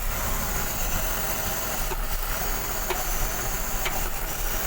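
BMW M54 3.0 inline-six idling rough and misfiring, with three sharp knocks spaced about a second apart over the running engine. The knock comes from around cylinders 5 and 6 and is intermittent rather than on every revolution; the owner traced the rough running to a dirty throttle body.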